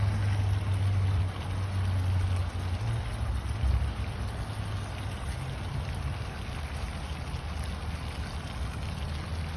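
Low, uneven rumble of wind buffeting the microphone, strongest in the first few seconds, over a faint outdoor hiss.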